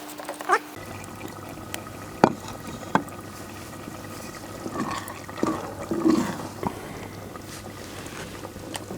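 Vegetable curry simmering and bubbling in a clay pot over an open fire, with two sharp knocks a few seconds in.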